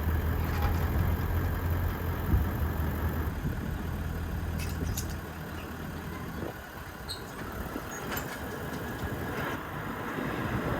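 An engine running with a steady low hum that eases about halfway through, with a few light clicks and knocks over it.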